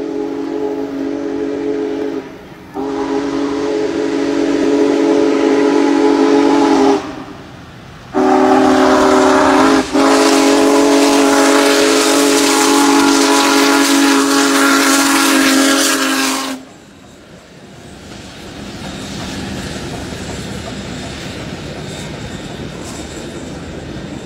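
Chime whistle of Union Pacific Big Boy 4014 steam locomotive sounding three long blasts, each longer than the one before, the last lasting about eight seconds. After the whistle stops, the train rolls past with a steady rumble.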